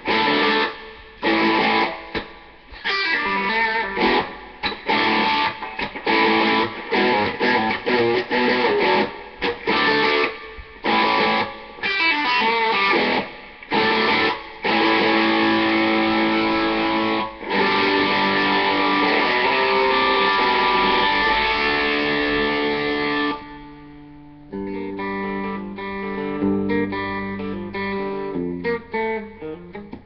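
Electric guitar played through a Peavey Bandit solid-state amp: chopped chord riffing with short stops, then held chords, and from about three-quarters of the way in a quieter run of single notes that ends abruptly.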